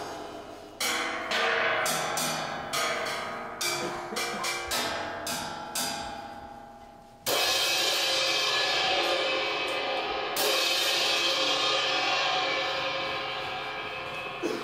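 Metal percussion struck in an uneven series of sharp hits, then two heavy crashes about three seconds apart that ring on and slowly fade.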